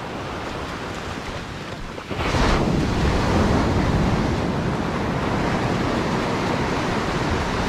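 Surf breaking and foaming up the sand at the water's edge, with wind buffeting the microphone. The wash swells suddenly about two seconds in and stays louder after that.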